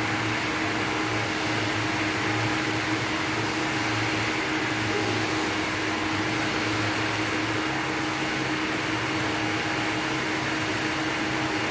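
Electric hand dryer blowing, a steady rush of air over a constant motor hum, running without a break.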